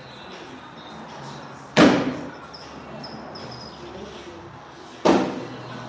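Two cornhole bags landing on a wooden cornhole board, two sharp thuds about three seconds apart, each with a short echo.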